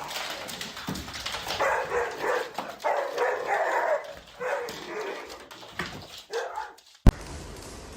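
A dog barking and whining in a run of short calls, then a single sharp click about seven seconds in.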